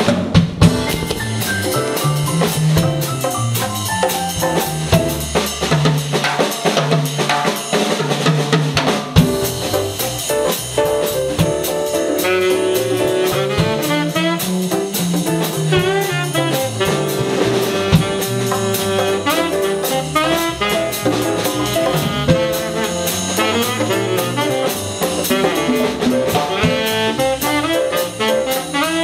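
Live small jazz combo playing: tenor saxophone over electric bass, piano and drum kit with cymbals. The opening seconds are mostly drums and bass, and the saxophone line comes to the front about ten seconds in.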